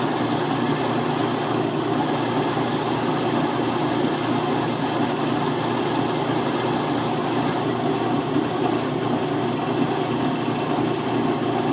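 Washing machine on its spin cycle, the motor and drum running with a steady hum, spinning the water out of washed sheep's fleece.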